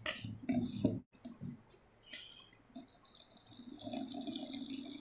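A steel spoon stirs and scrapes thick fermented rice batter in a stainless steel bowl. Then, from about three seconds in, a thin stream of coconut milk is poured from a small steel cup into the batter, a steady trickling pour.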